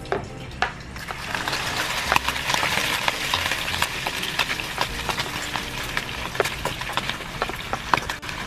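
Chopped bacon dropping into a hot non-stick frying pan and sizzling, the sizzle swelling about a second in and carrying on. A plastic spatula scrapes and taps as it pushes the bacon off the plate into the pan.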